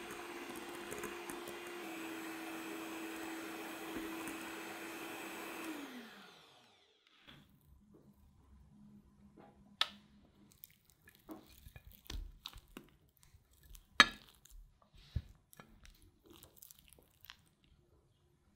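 Electric hand mixer whipping cream in a glass bowl, running steadily, then switched off about six seconds in, its hum falling away. After that, quiet scraping and a few sharp taps from a spatula working in the glass bowl.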